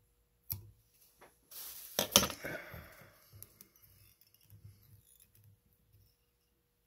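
Small fly-tying scissors snipping, the loudest snips about two seconds in, followed by faint clicks of tools being handled.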